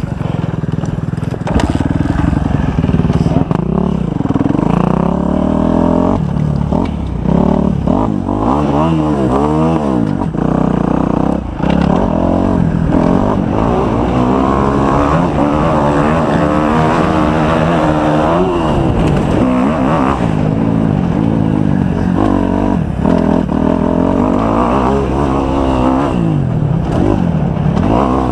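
Kawasaki 250 motocross bike engine being ridden hard, its pitch rising and falling again and again as the throttle opens and closes and the gears change.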